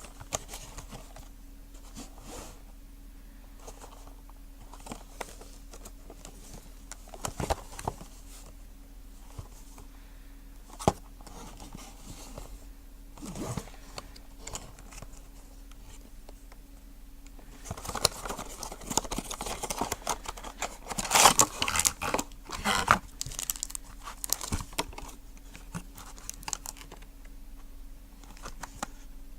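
Toy packaging being handled and opened: scattered taps and clicks, then a dense stretch of crinkling and tearing about two-thirds of the way through, over a steady low hum.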